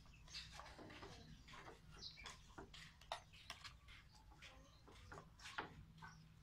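Faint, irregular clicks and scrapes of a metal spoon and knife working watermelon flesh: a spoon pressing pulp through a plastic strainer and a knife cutting into the watermelon.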